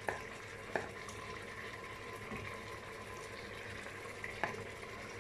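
Chicken cooking in a pressure cooker pot on the hob, giving a steady sizzling hiss. A wooden spoon taps three times against the dish or the pot: at the start, under a second in, and near the end.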